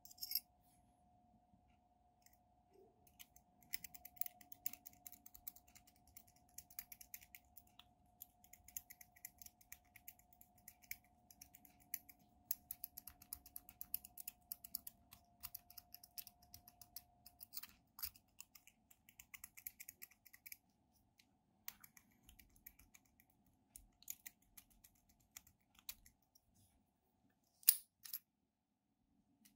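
A dimple rake worked in and out of a brass dimple padlock's keyway: a rapid run of fine metallic clicks and scrapes of the rake on the pins, thinning out after about twenty seconds, with a sharp louder click near the end.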